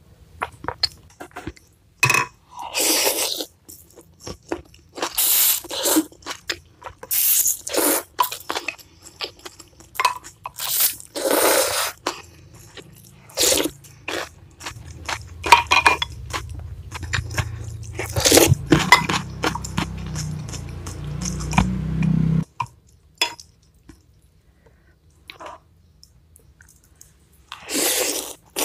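Close-miked eating: repeated slurps of thin vermicelli noodles in chilli broth, each lasting about half a second, between wet chewing and mouth clicks.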